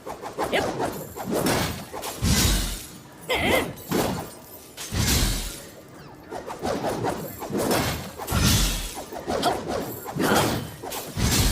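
Kusarigama sound effect: a metal chain clattering and swishing in repeated swings, with four heavy thuds about three seconds apart.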